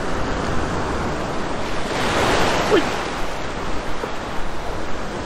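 Gulf surf washing and foaming close by in shallow water, with a wave surging in louder about two seconds in.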